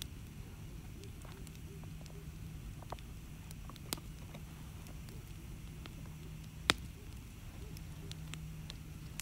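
Wood campfire burning, with sparse crackles and sharp pops from the logs; the loudest pop comes about two-thirds of the way in. A steady low hum runs underneath.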